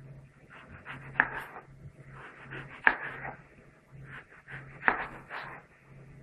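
Kitchen knife slicing a tomato on a plastic cutting board: three sharp knocks of the blade reaching the board, with softer taps and scraping between them.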